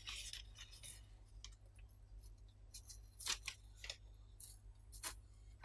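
Thin silver foil sheets being peeled from their paper backing and pressed onto clear slime: faint, scattered crinkles and light clicks, over a steady low hum.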